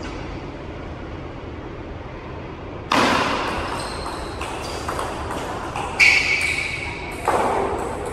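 Table tennis rally: the ball clicks sharply back and forth off the paddles and the table, several hits a second, starting about three seconds in, with a few louder hits that ring on briefly in the large room.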